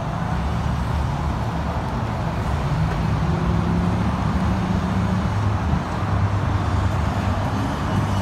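Road traffic noise: a motor vehicle's low engine rumble, with a drone that rises slightly in pitch and grows louder a few seconds in before easing off.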